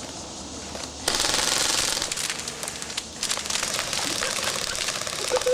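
Airsoft replica rifles firing in rapid full-auto bursts, a fast clatter that starts about a second in, breaks off briefly near three seconds and starts again.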